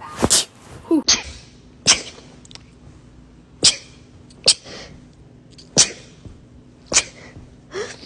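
Two women sneezing in rapid succession: about eight short, sharp sneezes, roughly one a second.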